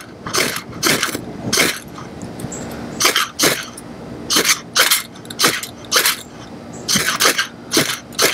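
Ferro rod struck over fatwood tinder: about a dozen quick rasping scrapes, often in pairs, as the sparks fail to catch yet.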